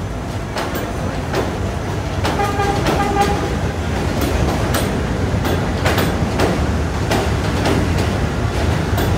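Vintage New York City subway cars passing an elevated station platform: a steady rumble with the clickety-clack of wheels over rail joints, growing louder about two seconds in. A brief high tone sounds around two to three seconds in.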